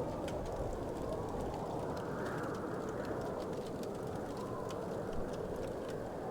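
Wood fire crackling, with light scattered pops and ticks over a steady low rushing background.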